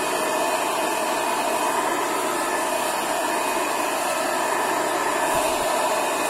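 Small electric blower fitted to a battery-powered knapsack sprayer, running steadily: a rush of air with a steady whine, blowing the weedkiller spray out as a fine mist.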